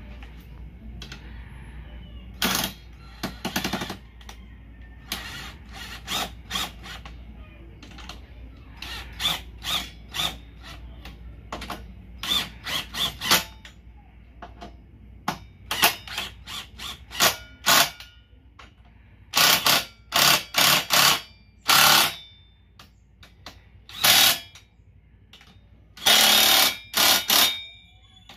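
Cordless power driver run in many short bursts, fastening the bolts of a top box bracket onto the scooter's rear frame. The bursts come irregularly, from a fraction of a second to about a second long, with the longest runs in the second half.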